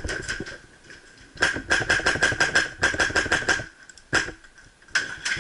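Airsoft F2000 with a PolarStar air-powered engine firing semi-auto: a fast string of shots, about seven a second, starting about a second and a half in and lasting two seconds, then two more single shots near the end.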